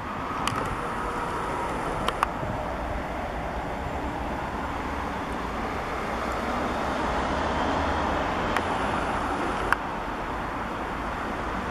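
City road traffic: a steady hum of cars and buses passing on a busy square, with a few short sharp clicks.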